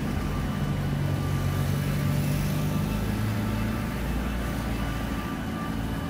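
An engine running steadily close by, its low hum dropping a little in pitch about three seconds in.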